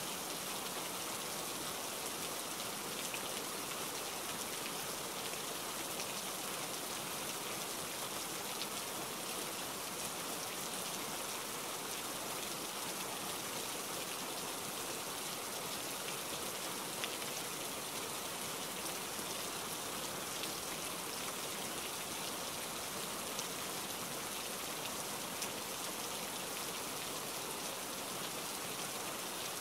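Steady rain: an even hiss, with faint scattered ticks of drops.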